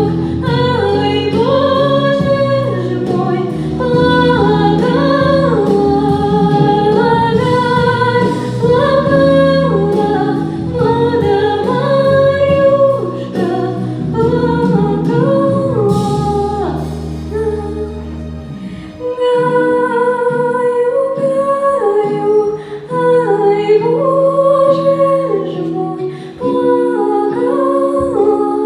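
Female vocal ensemble singing a song in Russian about birds, a melody over sustained low accompaniment notes; the deep bass drops out a little past halfway.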